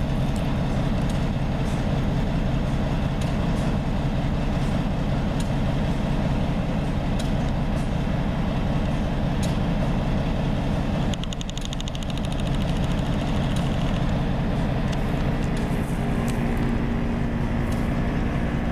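Diesel locomotive engine idling: a steady low hum. About eleven seconds in it dips briefly under a short run of rapid ticking.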